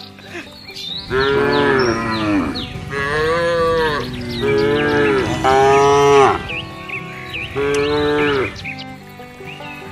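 Cattle mooing: about five long, loud calls in quick succession, each arching up and then falling in pitch.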